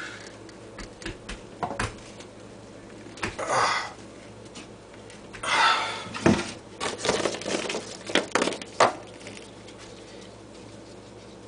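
Crumpled junk-mail paper balls being pushed down onto nails in a board: crunching, crackling paper with sharp clicks and taps, coming in several short bursts, busiest in the middle.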